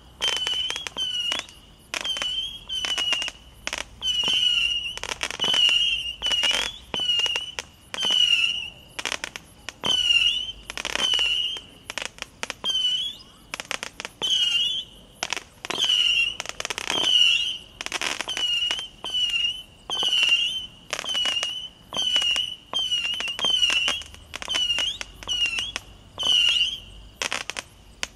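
Firework battery firing a rapid string of whistling shots, about one or two a second, each a short warbling whistle with a sharp crack.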